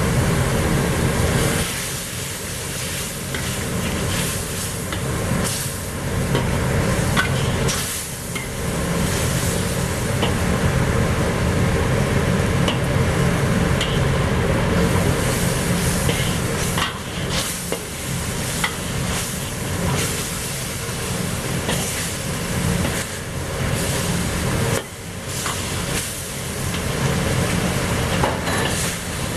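Coconut-milk sauce bubbling and sizzling in a pan on high heat while it is stirred with cornstarch slurry to thicken it, with scattered clicks and scrapes of the utensil against the pan.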